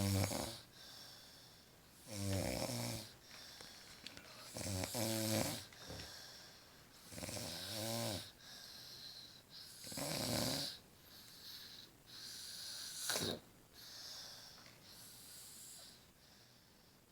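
A woman snoring in deep sleep: rattling snores on each breath, about every two and a half seconds, with a shorter, sharper snore later on and quieter breaths between.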